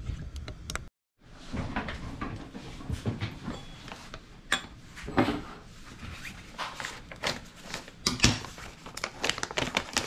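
Scattered knocks, clicks and rustling of things being handled on a kitchen counter, with a brief dropout to silence about a second in and denser rustling near the end.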